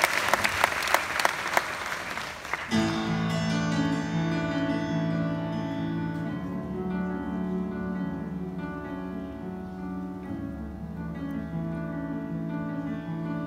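Audience applause with sharp individual claps, ending abruptly about two and a half seconds in as a live band starts a slow instrumental introduction: held chords from piano and band over low sustained notes.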